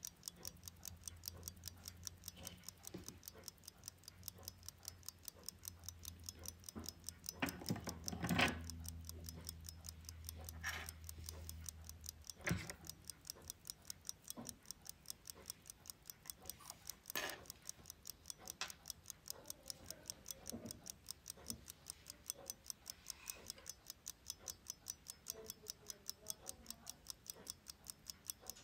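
Pocket watch movement ticking rapidly and evenly, with a few louder knocks as it is handled. A low steady hum stops about halfway through.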